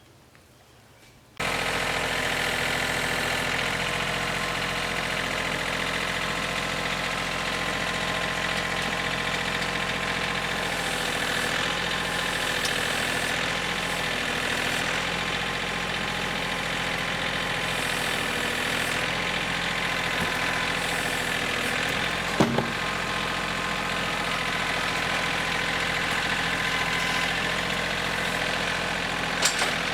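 Home-built sawmill's engine running steadily, starting abruptly just over a second in, with a sharp knock about two-thirds of the way through.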